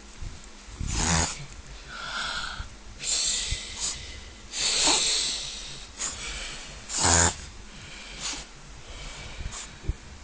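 Miniature Pinscher in a reverse-sneezing fit: repeated forceful snorting pulls of air through the nose, about one a second, some short and some drawn out, one with a whistling edge about two seconds in.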